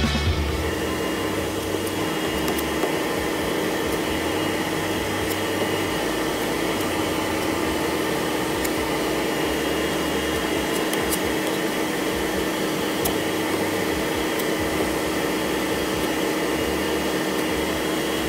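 Electric fan running steadily: an even whirring rush of air with a few steady humming tones in it.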